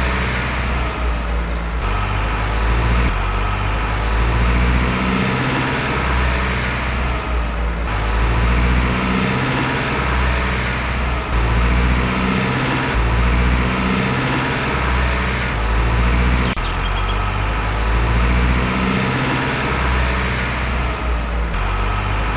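A truck engine sound effect running steadily, with abrupt changes where shots are cut.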